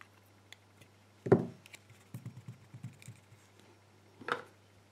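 Handling of a plastic bottle combination lock's small parts with metal tweezers while a little spring is fitted: a sharp knock about a second in, a run of light taps, and another click near the end.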